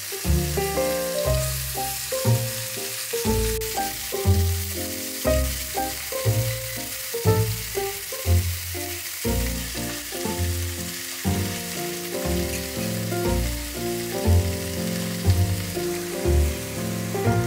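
Pork shoulder chops sizzling as they sear in a hot enamelled cast-iron pot, a steady hiss, under background music with changing low notes.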